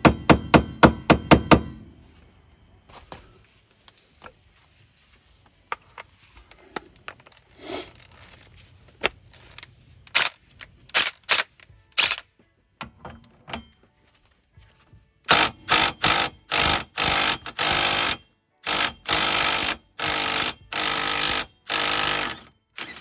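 Hammer blows on a pin driver, about four to five strikes a second, unstaking the 36 mm axle nut, stopping about two seconds in. After a lull with a few scattered clicks, a DeWalt half-inch cordless mini impact wrench runs in a series of short bursts on the axle nut over the last eight seconds, breaking it loose.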